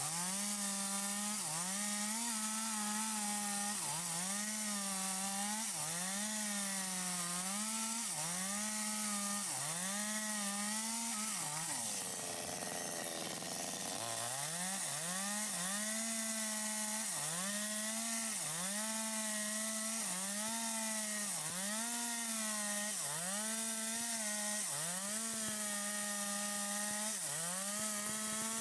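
Stihl MS 250 chainsaw with a 25-inch bar running at high revs while ripping wood lengthwise. The engine note dips under load and recovers roughly once a second as the chain bites, and falls lower for a couple of seconds near the middle before it climbs back.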